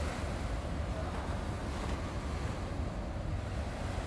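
Wind buffeting the microphone with a heavy low rumble, over a steady wash of sea.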